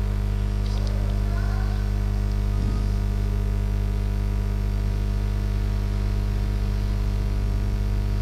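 Steady electrical mains hum, a constant low buzz with evenly spaced overtones.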